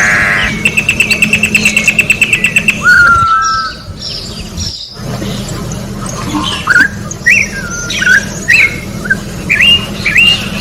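Corrupião (campo troupial) singing: a fast rattling trill, then a clear whistle falling slightly in pitch about three seconds in, and in the second half a run of short rising whistled notes.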